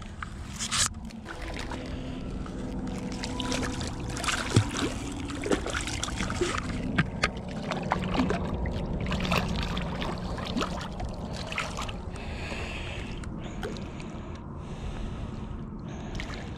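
Splashing and sloshing in shallow water as a released channel catfish thrashes and swims off, with scattered knocks and rustles of handling.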